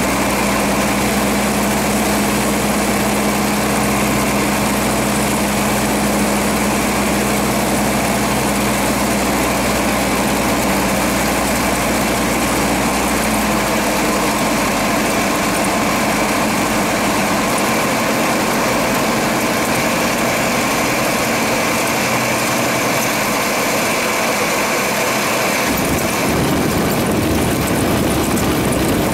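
Cockpit sound of a Cessna 172RG's four-cylinder Lycoming engine and propeller on final approach, a steady drone whose low tones change about halfway through as power comes back. Near the end a rougher rumble comes in as the wheels touch down and roll on the snow-covered runway.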